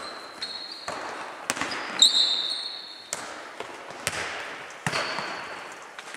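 Foot tennis ball being kicked and bouncing on a sports hall floor: a string of sharp thuds about every half second to a second, echoing in the hall, with short high squeaks among them.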